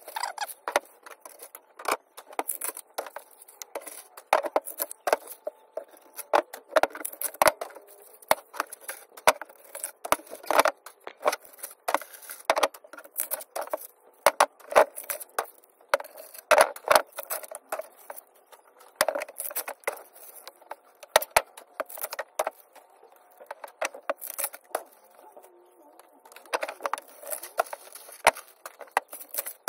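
Aluminium armour wires of a single-core armoured cable being pulled apart and peeled back by hand, the stiff strands clinking and scraping against each other in irregular sharp clicks.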